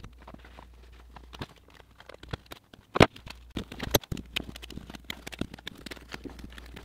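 Blue painter's tape being handled with nitrile-gloved hands and pressed over a countertop edge: scattered crackles and clicks, with two sharper knocks about three and four seconds in.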